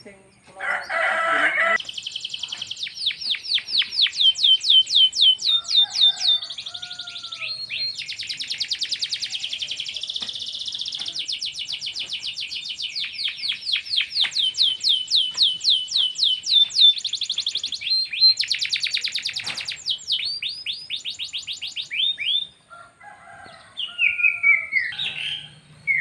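Domestic canaries singing: a long song of fast, evenly repeated trill notes, one rolling phrase after another with brief breaks, giving way to softer, scattered chirps near the end.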